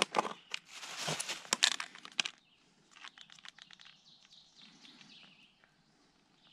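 Snap-on lid of a plastic bait tub being pried off, a quick run of sharp plastic clicks and crackles over the first two seconds or so. Then fainter scratching and rustling as fingers dig through the soil inside the tub.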